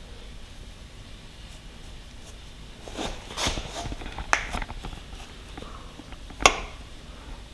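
A few short clicks and clatters from tools and bike parts being handled: a cluster partway through, then one sharp knock about six and a half seconds in, with quiet in between.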